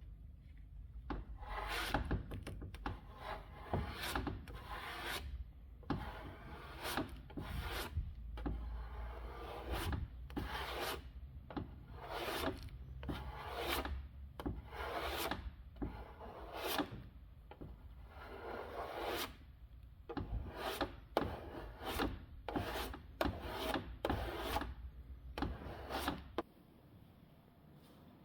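Hand sanding of the car's body: sandpaper rubbed back and forth in steady, regular strokes, about one a second.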